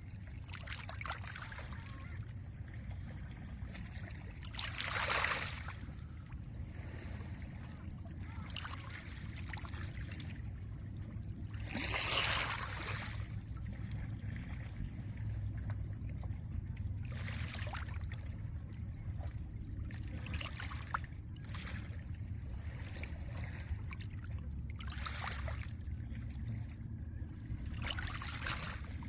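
Small lake waves washing gently onto a pebble shore. Each wave makes a brief hiss, coming irregularly every few seconds, with the loudest about five and twelve seconds in. Under them runs a steady low rumble of wind and water.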